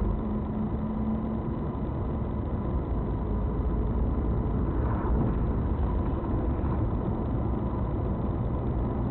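A car driving, with steady engine and road noise, mostly a low rumble, and no crash or impact heard.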